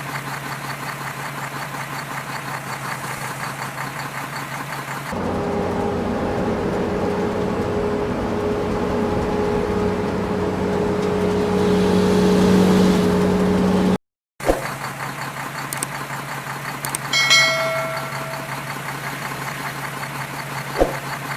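Engines of heavy earthmoving machinery and trucks running steadily. About a third of the way in, the sound switches to a louder engine with a steady whine that builds. After a brief dropout, the first steady engine returns, with a short pitched tone in the later part.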